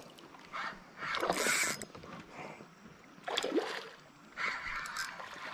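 Fishing reel being cranked in three short spells while a smallmouth bass pulls on the line.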